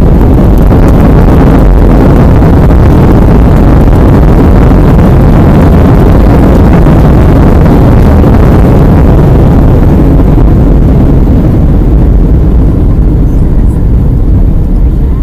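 Boeing 737-300's CFM56 jet engines heard from inside the cabin during the landing, a loud, steady rumble that overloads the phone microphone. It eases off slightly over the last few seconds.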